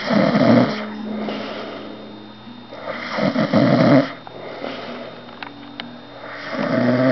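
A sleeping man snoring: three loud, rasping snores about three seconds apart, with softer breaths out between them.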